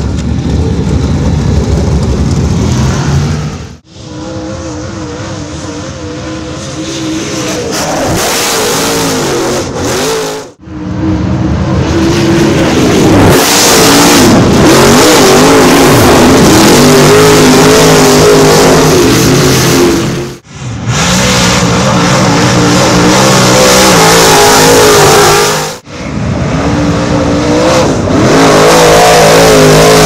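Dirt late model race cars' V8 engines running hard, pitch wavering up and down as the throttle is worked, in a string of short clips that cut off suddenly, four times, from one car to the next. The loudest passes come in the second half.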